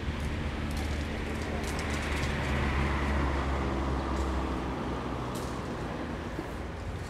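Outdoor rumble of road traffic, swelling to a peak about three seconds in as a vehicle goes by, then easing.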